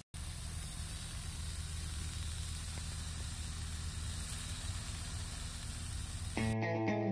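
Venison steaks sizzling in a cast iron skillet, a steady hiss. Guitar music comes in near the end.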